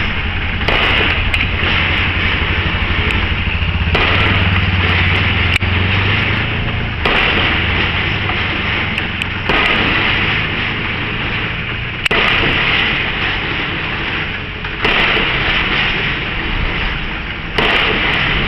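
Pile-driving rig's hammer striking about every three seconds, each blow a sudden loud hit that slowly dies away, over the steady running of the rig's engine.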